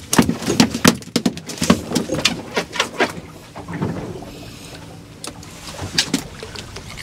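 Water splashing beside the boat hull as a hooked dorado thrashes at the surface, in quick irregular slaps for about the first three seconds, then only a few scattered splashes.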